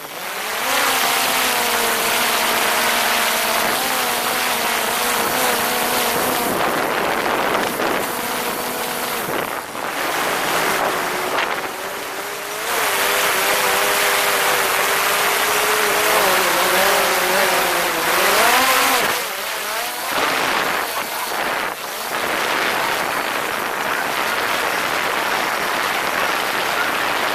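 Quadcopter drone's propellers running close by: a steady multi-toned whine that shifts pitch as the motors change speed, rising sharply about two-thirds of the way through. It sits over a heavy rushing noise, and in the last few seconds the whine fades under that rushing.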